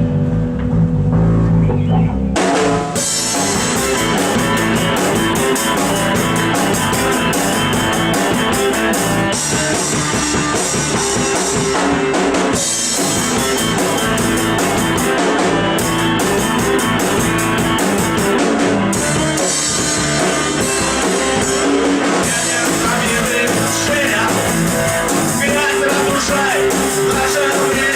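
Rock band playing: a guitar-led intro for about two seconds, then the drum kit and the rest of the band come in together and play on.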